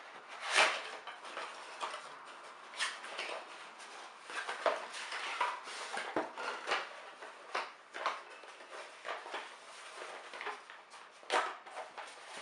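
Cardboard packaging being handled: a product box slid out of its sleeve and a cardboard inner box opened, with irregular scrapes, rustles and light knocks. The sharpest scrape comes about half a second in, with more near the end.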